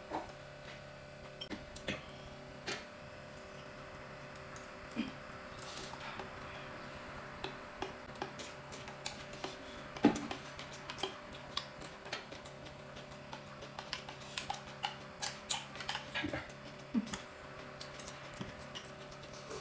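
Quiet eating sounds: scattered small clicks and smacks of chewing and of chopsticks on bowls and plates, one louder click about halfway through, over a faint steady hum.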